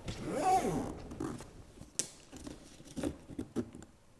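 Suitcase zipper being run around the case's edge, with a wavering zip for about the first second, then a few light clicks and handling taps.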